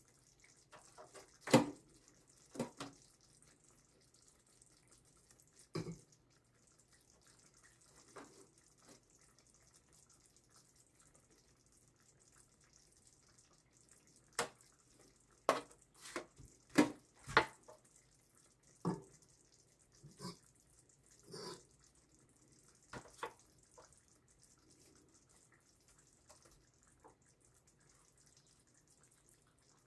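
Scattered light taps and clicks, about a dozen, as slices of eggplant and tomato are laid into a baking dish, most of them bunched in the middle of the stretch, over a faint steady hum.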